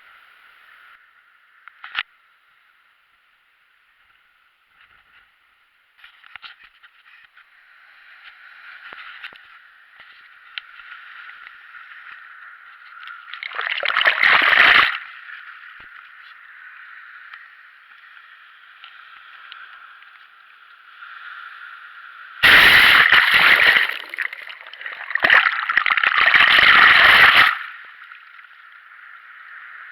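Seawater washing and sloshing at the shore, with three louder rushes of splashing, one about halfway through and two close together near the end.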